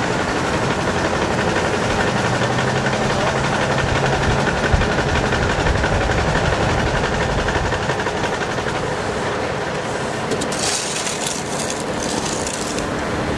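Heavy diesel engines of a wheel loader and a big-rig truck running steadily. About ten seconds in, a brief hiss comes in over them.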